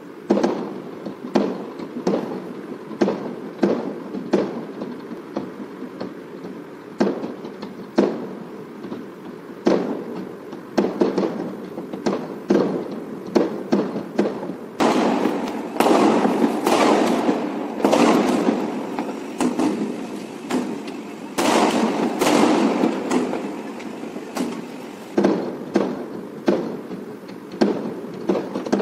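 Many fireworks going off at once: a continuous run of irregular bangs, with denser stretches of crackling about halfway through and again a few seconds later.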